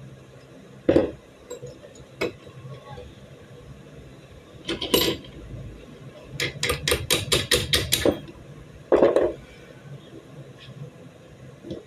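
Beretta 92 pistol parts and steel hand tools clinking and knocking on a wooden workbench during disassembly. Single sharp knocks come about 1, 2 and 5 seconds in, then a quick run of about ten metallic clicks, then another knock about 9 seconds in.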